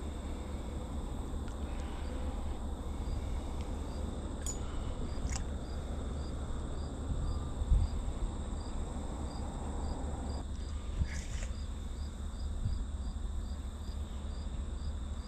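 Crickets chirping at an even pace of about two chirps a second over a steady high insect hum, with a low steady rumble underneath and a single low bump about eight seconds in.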